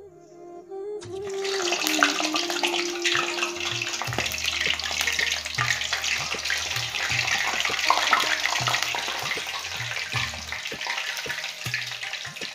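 Samosas and rolls deep-frying in hot oil in a wok: a dense sizzling crackle that starts suddenly about a second in, as they go into the oil, and keeps on steadily.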